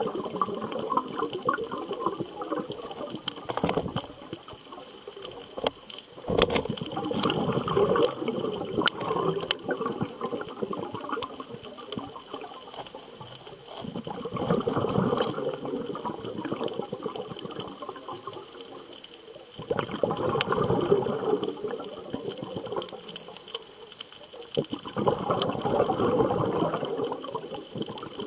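Scuba diver's exhaled bubbles gurgling from the regulator underwater, in about five surges of a few seconds each, one every six seconds or so, with quieter breathing pauses between.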